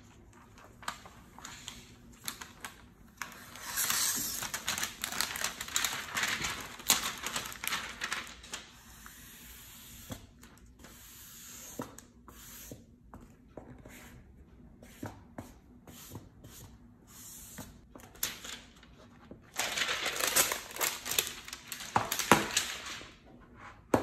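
Plastic screen-protector film being peeled and smoothed by hand on an iPad Pro's screen: crinkling and peeling hiss with many small taps and clicks. It is busiest about 4 to 8 seconds in and again around 20 to 22 seconds, with a steady hiss around 10 seconds.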